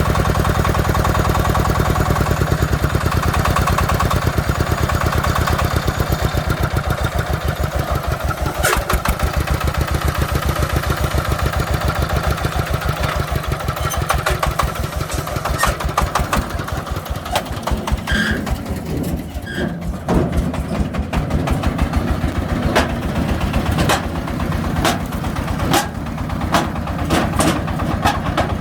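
Single-cylinder diesel engine of a three-wheeled công nông truck chugging at a steady beat; about two-thirds of the way through the beat slows and turns uneven, with separate knocks.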